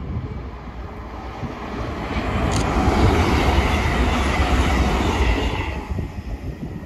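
CrossCountry Class 221 Super Voyager diesel-electric multiple unit passing at speed: the engine and wheel-on-rail noise swell as it nears, stay loud for a few seconds as it goes by, then fade away.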